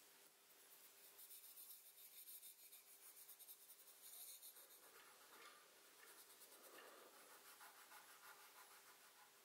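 Faint pencil scribbling rapidly back and forth on paper over a coin. About halfway through it gives way to a fingertip rubbing the graphite into the paper.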